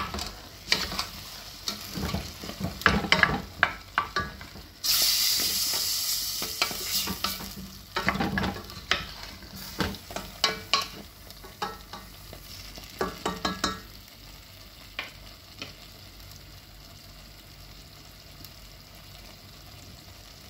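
A wooden spoon stirring and scraping in a steel pot of chicken, carrots and potatoes frying in tomato paste, with repeated knocks against the pot and a sizzle underneath. The sizzle swells loudly for a few seconds about five seconds in. The stirring stops about two-thirds of the way through, leaving a faint steady sizzle.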